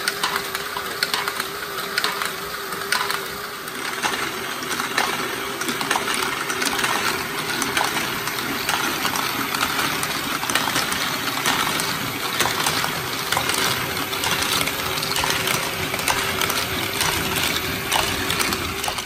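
LEGO Great Ball Contraption stepper modules running: many small plastic balls clicking and clattering against plastic bricks as they are stepped up and drop down the stairs, over a steady hum from the motor-driven mechanisms.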